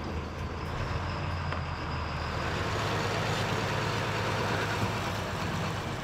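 Crab boat engine running steadily, with water rushing and splashing as a crab pot is hauled up alongside the hull.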